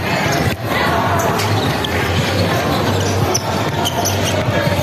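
Basketball bouncing on an indoor court during a game, a scatter of short impacts over steady noise echoing in a large hall.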